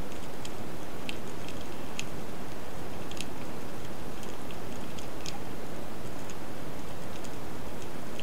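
Underwater ambience: a steady low rush of moving water with many irregular sharp clicks and crackles scattered through it, several a second.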